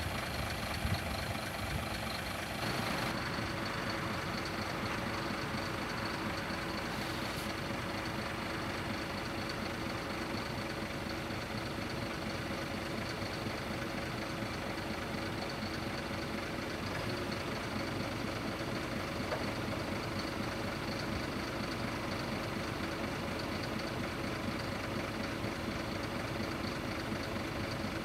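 Scania R400 truck's engine running steadily while its Hiab loader crane's hydraulics extend the boom, a constant hum with a few steady tones.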